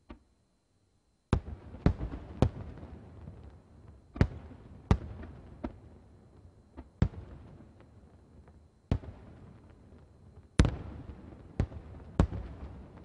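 Aerial firework shells bursting: after about a second of quiet, about ten sharp booms at uneven intervals, each followed by a rolling rumble as it echoes away.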